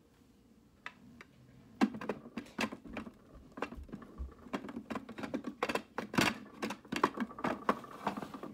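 Quick, irregular light clicks and taps starting about two seconds in: small makeup tools and containers handled close to the microphone while eyeliner is applied.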